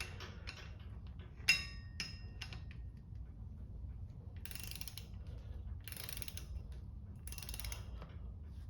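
Snap-on digital torque wrench ratcheting while clutch pressure-plate bolts are torqued to 85 ft-lb. A run of ratchet clicks, a sharp click with a short beep about a second and a half in, then three longer spells of ratcheting as the wrench is swung.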